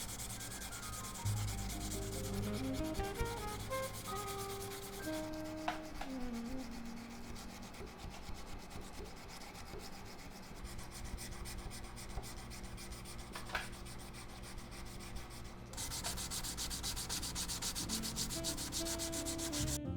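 Knife blades of 1075 carbon steel being hand sanded with sandpaper: quick back-and-forth rubbing strokes that go on steadily and grow louder about 16 seconds in.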